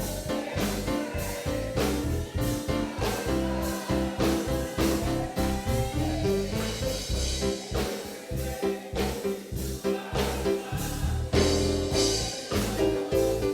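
Gospel band music with a steady drum beat and a moving bass line.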